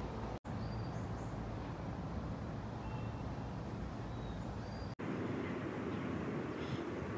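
Steady outdoor background noise with a low rumble, broken by two very short dropouts, with a few faint, short, high bird chirps.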